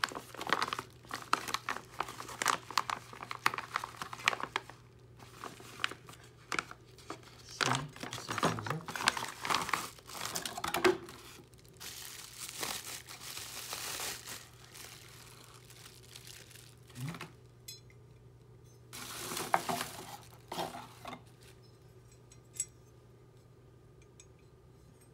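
Plastic packaging bag and bubble wrap crinkling and rustling in repeated bursts as they are pulled open and peeled off a metal camera cage. The crinkling dies down about three-quarters of the way through, leaving a few faint clicks.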